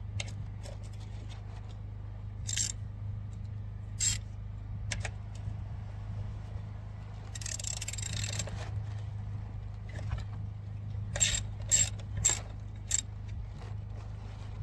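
Metal hand tools clinking against each other, with a short run of ratchet clicking in the middle and several sharp metallic knocks near the end, as a 14 mm socket and ratchet are fitted to the oil drain plug.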